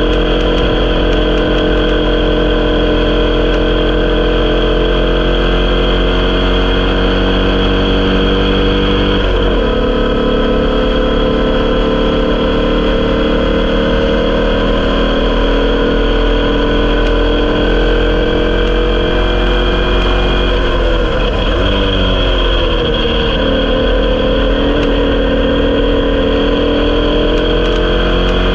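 Onboard sound of a Formula Vee's 1200 cc air-cooled Volkswagen flat-four engine running hard under racing load, its pitch climbing slowly. It dips briefly about nine seconds in, then around twenty-one seconds the pitch falls and wavers before climbing again.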